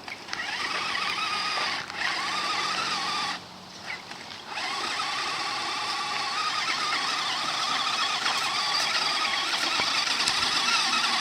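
Small electric motor of a radio-controlled fishing boat whining under throttle. It cuts out for about a second a little over three seconds in, then picks up again and runs steadily.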